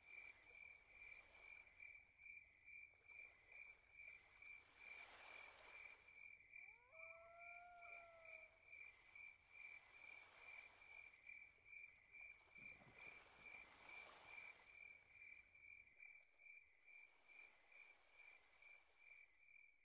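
Near silence with faint, steady chirping of crickets in quick, even pulses. A brief faint gliding call about seven seconds in.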